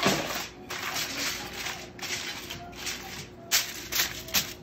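Sheet-pan lining crinkling and rustling as it is folded and curled under around the edges of the pan, in a run of short scrunches that come quicker near the end.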